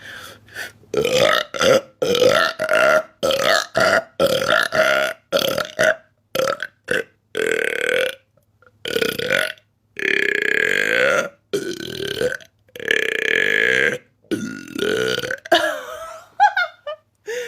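A woman's rapid-fire burps: a quick string of short belches, then several longer, drawn-out ones about a second each.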